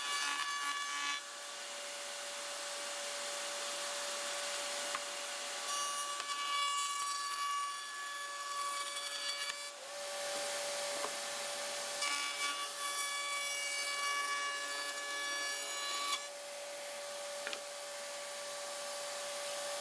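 Table-mounted router running with a steady high whine as a pine board is fed along the fence past the bit. The cutting noise shifts several times over the passes.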